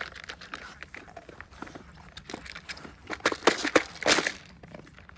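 Dalmatians nosing and mouthing at a plastic treat toy: a run of plastic clicks, knocks and scrapes with chewing, busiest and loudest about three to four seconds in.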